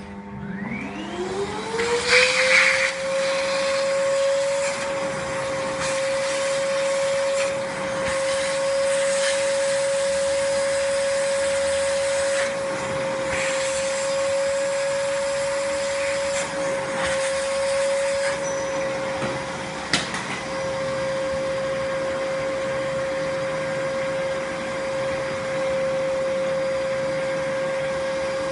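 Vacuum cleaner switched on, its motor whine rising in pitch over the first two seconds and then running steadily, with the rush of suction swelling and easing now and then, and a single sharp click about 20 seconds in. It is being used to suck dirt and water out of a phone's speaker.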